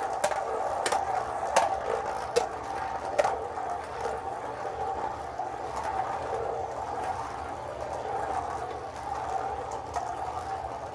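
Beyblade spinning tops whirring steadily in a plastic stadium, with several sharp clacks as they collide in the first three seconds or so.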